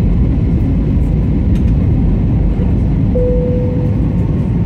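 Steady cabin noise of a jet airliner in flight, heard from a window seat: the even, loud rumble of engines and airflow. A short steady tone sounds for under a second about three seconds in.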